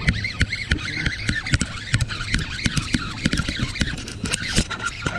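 Jacket fabric rubbing and knocking against a chest-mounted action camera, with many irregular clicks and scrapes, over a low steady hum.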